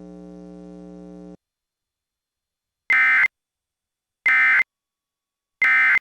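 A steady electrical hum cuts off suddenly about a second in, followed by three short, loud, screechy data bursts evenly spaced: the Emergency Alert System's SAME end-of-message (EOM) tones that close the alert.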